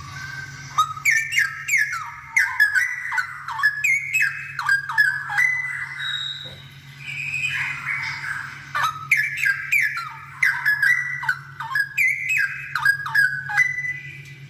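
Straw-headed bulbul (cucak rowo) singing vigorously: two long phrases of rapid, loud, gliding whistled notes, the second starting about nine seconds in. A steady low hum lies underneath.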